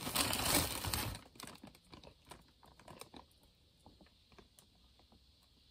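A plastic zip bag of clear crunchy slime beads crinkling and rattling for about a second, then scattered light clicks as individual beads are picked out and pressed into the slime.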